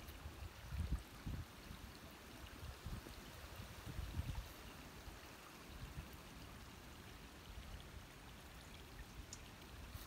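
Faint steady trickle of a small creek's water running through and past a woven stick-and-post dam, with occasional low bumps.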